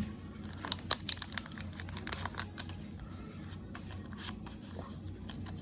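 Foil booster-pack wrapper crinkling and tearing, with trading cards being handled. There is a quick run of crackles in the first couple of seconds and a single louder one about four seconds in.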